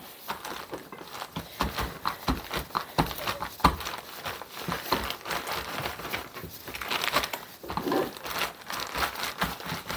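Rolling pin pressed and rolled over a plastic zip-top bag of stale, crumbly coconut cookies, crushing them into crumbs. The bag crinkles and the crumbs crackle in a dense run of small, irregular clicks.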